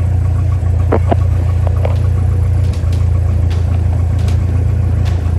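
Aero Commander Darter's single piston engine and propeller running steadily, a loud, low drone heard inside the small cabin.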